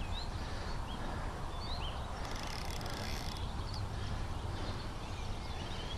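Small birds chirping, a scatter of short high chirps, over a steady low rumble of outdoor background noise.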